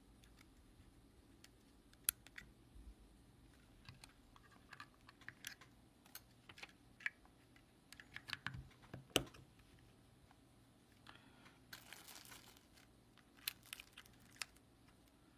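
Faint, scattered clicks and taps of small objects being handled. A short crinkling rustle comes about twelve seconds in, and the sharpest click falls a little after nine seconds.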